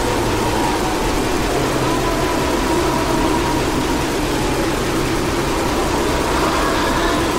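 Steady, dense rumbling noise with a faint held tone, an engine-like drone passage in a recorded metal song.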